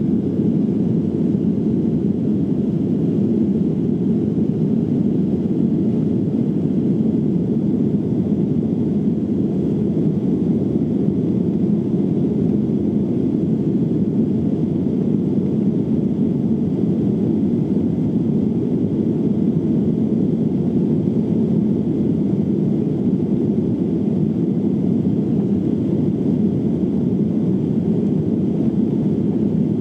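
Steady cabin noise inside an ANA Boeing 737-800 airliner in flight: a constant low rush of engine and airflow noise that does not change.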